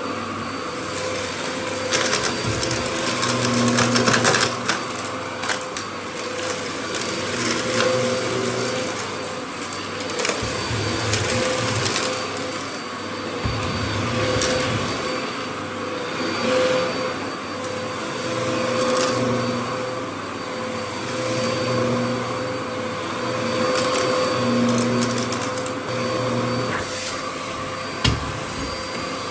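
Dyson DC07 All Floors bagless upright vacuum cleaner running, with a steady motor whine. The sound swells and eases every two to three seconds as the cleaner head is worked back and forth, with brief crackles of grit being sucked up.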